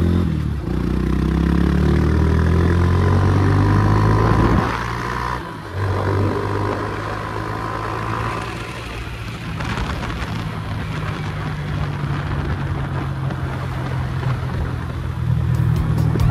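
Motorcycle engine running steadily while riding at road speed, with wind and road noise over it. The sound dips briefly about five seconds in.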